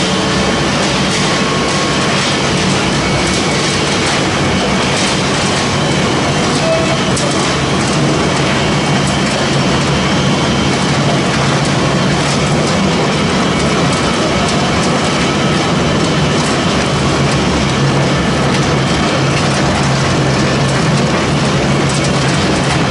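Wood pellet mill production line running: a loud, steady machine noise with a low hum and faint scattered clicks.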